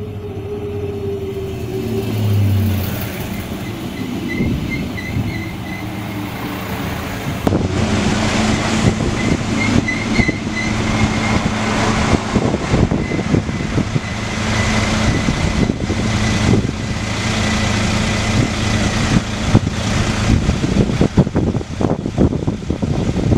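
Diesel engines of DB Class 648 (Alstom Coradia LINT 41) multiple units running at a station platform. A series of short high beeps sounds a few seconds in and again about ten seconds in. After that a unit right beside the platform runs with a steady high whine over the engine note and pulls away.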